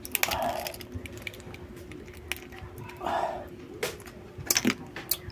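Close-up mouth eating sounds: chewing, smacking and crunching on raw shellfish, with several sharp cracks of shell in the second half.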